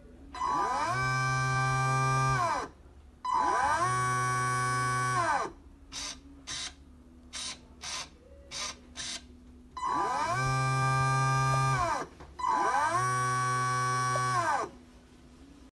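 Lake Reaper bait boat's electric propeller motor whining, four times over: each run rises in pitch as it spins up, holds steady for about two seconds and winds down. A run of short buzzes from the steering servo falls in the middle as the stick is flicked side to side. Throttle and steering work separately, as they should with the channel-mixing setting turned off.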